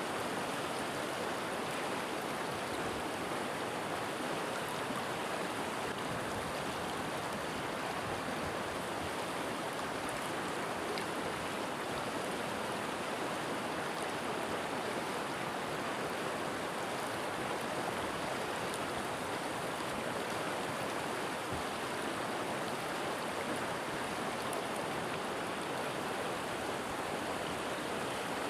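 A river or stream flowing over rocks with a steady, even rush of water.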